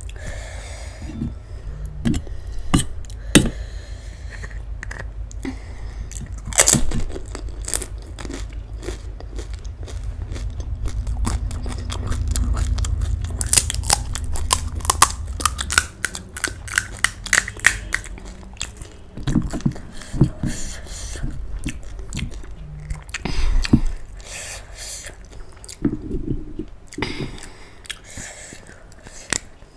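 Crisp, hollow panipuri shells cracking and crunching close to the microphone as they are broken open and stuffed with mashed potato filling. An irregular run of sharp crackles and clicks.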